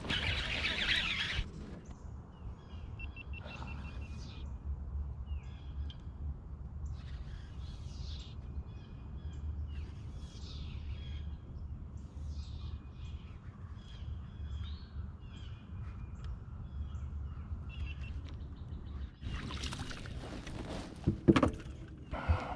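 Songbirds singing: short, repeated high chirping phrases over a steady low hum. A brief rushing noise comes at the start and again near the end, followed by a few sharp knocks.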